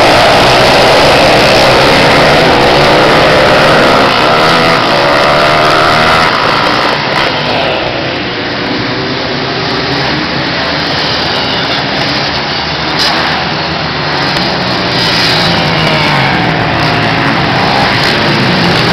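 A group of small motorcycle engines revving hard, loud and close, as the bikes pull away from a standing start. A few seconds in the sound drops to engines buzzing farther off. It grows again near the end as several bikes accelerate toward the microphone, their pitch rising and falling through the gears.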